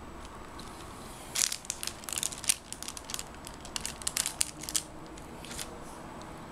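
Blade cutting through a loaf of riced, grainy cold process soap: a run of crackly crunching clicks for about three seconds, then one more shortly after.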